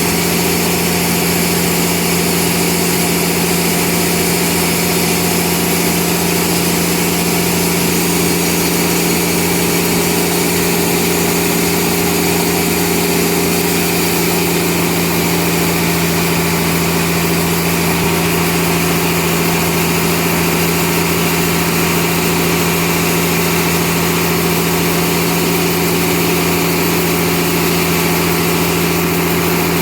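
Sawmill machinery running steadily and loudly, a constant mechanical hum with no change in pitch or rhythm.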